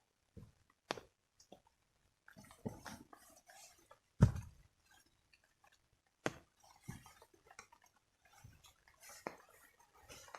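Scattered handling noises: light knocks, clicks and rustling, with one heavier thump about four seconds in.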